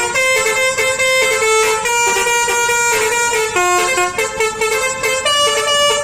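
Bus "telolet" horn, a set of air-horn trumpets, playing a tune of held notes that step up and down between several pitches without a break.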